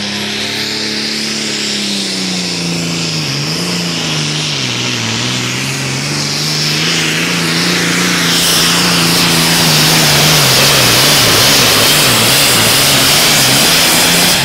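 John Deere pulling tractor's turbocharged diesel engine at full power, dragging a weight-transfer sled. Its pitch sags twice early in the pull as the engine bogs under the load, then climbs back and wavers, with a high turbo whine over it, and the sound gets louder in the second half.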